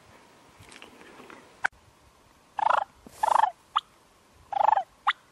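Wild turkey gobbler gobbling in three short, loud bursts over about two seconds, with a few sharp clicks between them.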